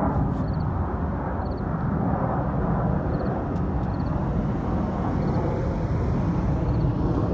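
Jet airliner climbing out after takeoff, its engines a steady deep rumble. Faint short chirps repeat high above it, a little under once a second.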